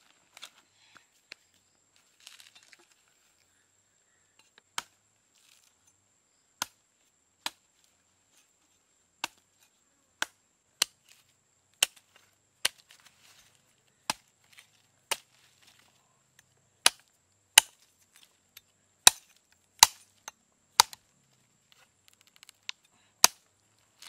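Large chopping knife hacking into the husk of a green coconut: about twenty sharp chops at an uneven pace of roughly one a second, starting a few seconds in and growing louder toward the end, with faint rustling before the first chop.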